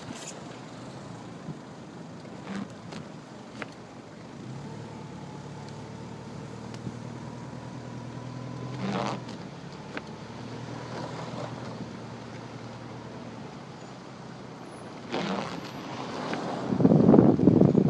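1998 Subaru Legacy Outback driving through snow in second gear, heard from inside the cabin: steady engine hum and tyre and road noise with a few scattered knocks. Near the end a loud, uneven rumbling noise takes over.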